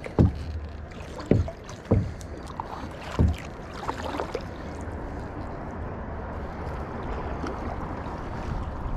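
A kayak paddle being handled against the plastic kayak: four sharp knocks in the first three or four seconds, then the paddle dipping and dripping in the water as paddling starts, over a steady low rumble.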